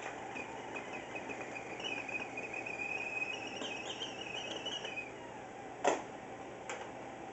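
Stainless stovetop kettle on an electric coil burner starting to whistle: a thin, wavering whistle that climbs in pitch for several seconds, then stops when the kettle is lifted off the burner. About six seconds in comes a single sharp knock as the kettle is set down, over a steady sizzling hiss from food frying in a pan.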